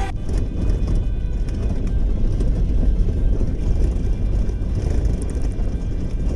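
Car driving along an unpaved desert track: a steady low rumble of engine and tyres.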